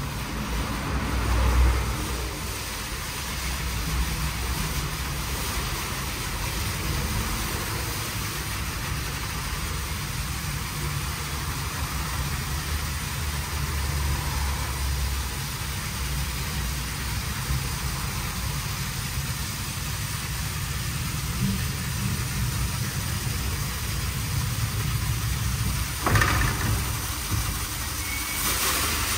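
WashTec SoftCare² Takt rollover car wash running over a car: a steady mechanical noise with a low rumble and a hiss, and one sharp knock about 26 seconds in.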